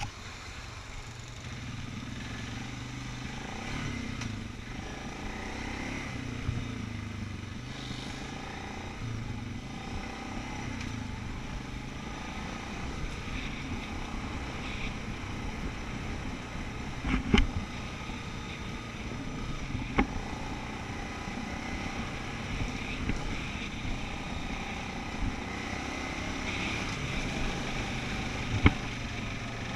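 ATV engine running at trail-riding speed, its pitch wavering a little with the throttle. A few sharp knocks come through it, the loudest near the end.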